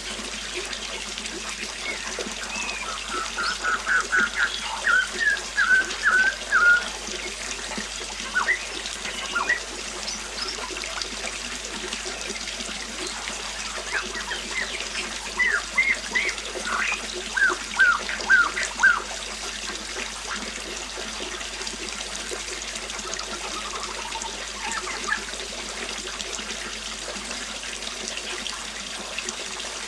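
Steady flowing river water running over stones, with a songbird singing two short phrases of rapid, chirping notes, the first a few seconds in and the second about halfway through.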